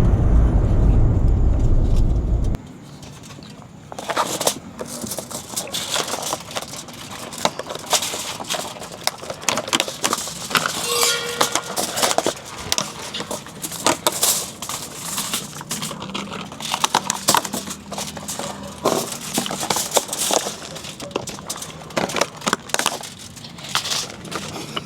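A heavy, deep intro sound cuts off about two and a half seconds in. It is followed by irregular crinkling, clicking and scraping of plastic food packaging being handled and opened.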